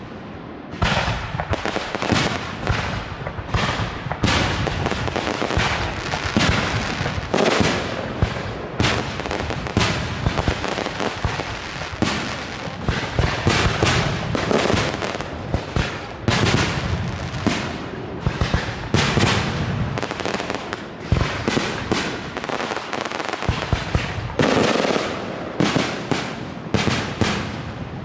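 Aerial firework shells bursting in a dense, unbroken barrage, loud bangs following one another several times a second with overlapping booms.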